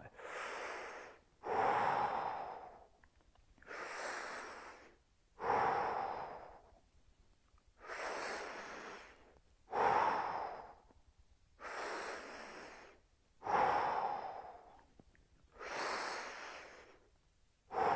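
A man taking five deep, audible breaths through the mouth, in and out in turn, each breath a rush of air lasting about a second and a half, while holding a strenuous backbend stretch.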